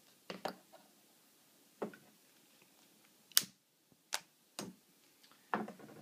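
Sparse sharp clicks and light taps of a butane torch and small tools being handled on a workbench while getting ready to solder, the sharpest click a little past three seconds in.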